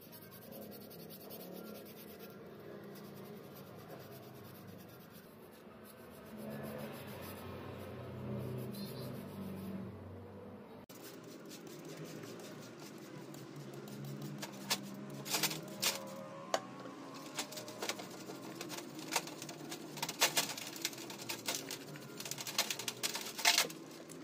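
A cloth rubbing over a plastic power-drill housing, then, after a cut, metal drill parts being brushed and handled in a wet steel tray, with sharp clicks and scrapes of metal on metal through the second half.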